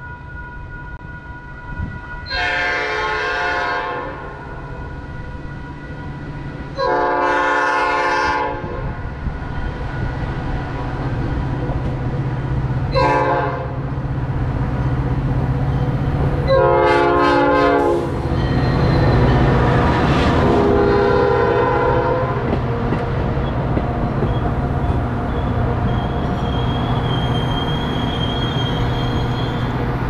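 Metra locomotive 111, an EMD F40PH diesel, sounding its multi-chime air horn in long, long, short, long blasts, the grade-crossing signal, then a fainter fifth blast. The train then runs past close by: a steady engine hum and wheel rumble with some clickety-clack from the bilevel coaches.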